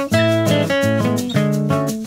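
Instrumental background music with a quick, even pulse of plucked notes.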